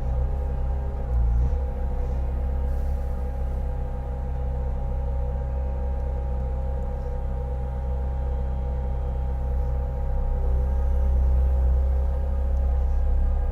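Bobcat T650 skid steer's diesel engine running steadily, powering the hydraulic log splitter, with a brief change in pitch about a second in.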